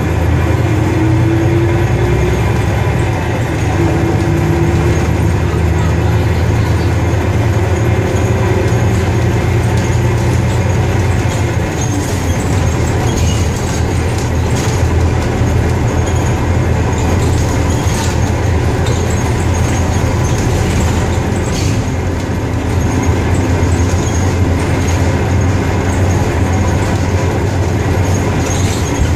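Cabin noise of an Ikarus 280 articulated bus under way: a steady low engine drone with road and running noise. A faint whine rises in pitch near the start and again near the end. In the middle there are scattered sharp clicks and rattles.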